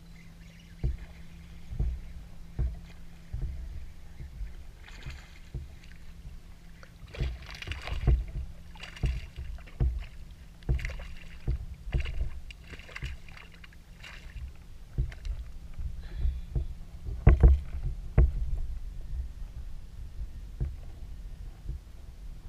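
Small waves lapping and knocking against the hull of a small floating craft in uneven low thumps about once a second. Splashier bursts come through the middle, and the loudest knocks are about three-quarters of the way in.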